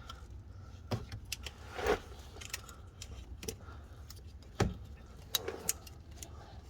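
Scattered light clicks and rattles of a wiring harness and its plastic connector clips being handled and pushed back into place, a few sharper snaps among them.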